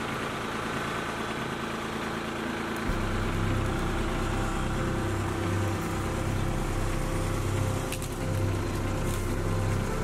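Kubota B2261 compact tractor's three-cylinder diesel engine running steadily, then growing louder and deeper about three seconds in as it takes up the pull on a rope tied to a partly cut tree.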